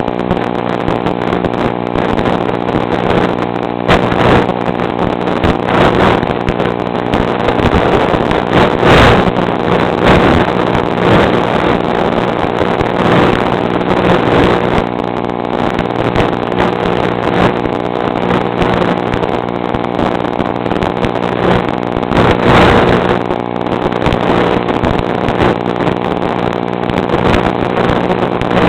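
A motor running steadily at constant speed, with wind noise on the microphone and a few louder swells.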